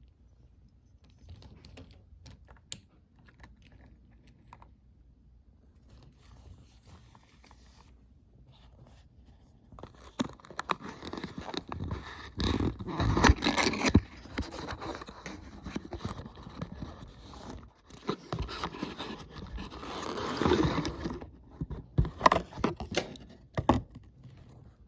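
Toy packaging being handled and opened by hand: faint scrapes and clicks at first, then dense scraping, crinkling and tearing of cardboard and plastic through the middle, with a few sharp clicks near the end.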